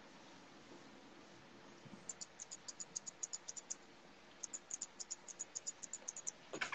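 Grooming scissors snipping through a poodle puppy's coat: faint, quick runs of crisp snips, about seven a second. They start about two seconds in, pause briefly and then go on again.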